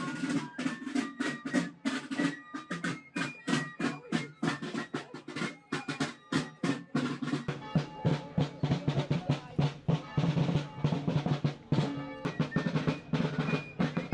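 Marching drums playing: rapid snare drum rolls and strokes over a bass drum, with a high-pitched melody carried above them.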